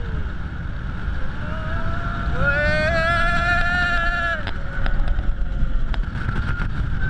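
Wind rushing over the on-board microphone and the rumble of a Bolliger & Mabillard hyper coaster train at speed, with a rider letting out one long scream for about two seconds near the middle and fainter shouts around it.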